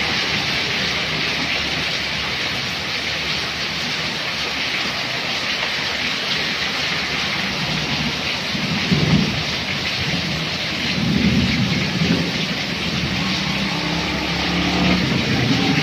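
Heavy rain falling steadily, with low rumbles about nine and eleven seconds in, and a passing motorbike engine near the end.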